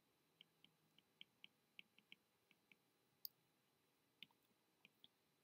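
Faint, irregular clicks of a stylus tip tapping on a tablet's glass screen while handwriting, about a dozen light taps with one sharper click a little past three seconds in.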